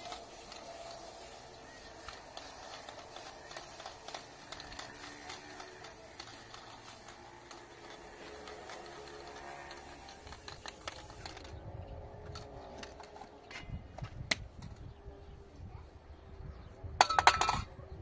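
Aerosol spray-paint can hissing as paint is sprayed onto a wall; it stops sharply about two-thirds of the way through. Then come a few light clicks and, near the end, a short loud burst of metallic clinking.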